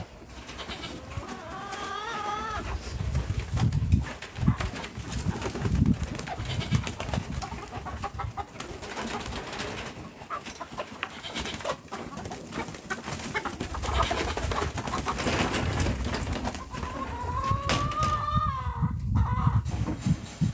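Farm birds calling: a short wavering call about two seconds in and a longer one near the end, over steady rustling and knocking.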